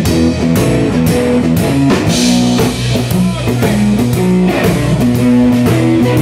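Live rock band: an amplified electric guitar playing a low, repeating riff over a steady drum-kit beat.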